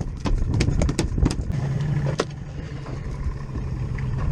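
Boat engine idling steadily, with a scatter of sharp knocks and clatter on deck.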